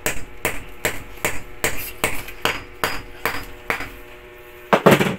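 A hammer drives a 9 mm steel rod into an undersized hole drilled in a masonry wall, with about ten even strikes at roughly two and a half a second. The strikes stop, and near the end there is a short, louder clatter.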